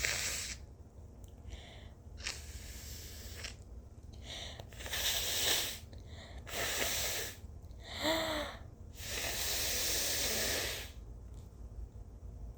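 Sniffs, then a string of forceful bursts of air through a woman's nose, which is irritated by turmeric. The last burst is a long one of about two seconds, and one just before it carries a short voiced squeak.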